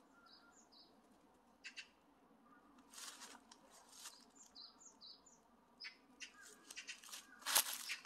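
Footsteps crunching through dry fallen leaves, loudest near the end, while a small bird gives two short runs of high chirps, three notes near the start and four around the middle.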